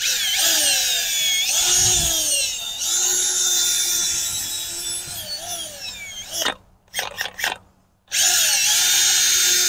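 Cordless drill spinning a garden auger bit down into loose bed soil to bore a planting hole. The motor whine sags in pitch as the auger bites, stops about six and a half seconds in after a few short trigger blips, then runs steadily again from about eight seconds in.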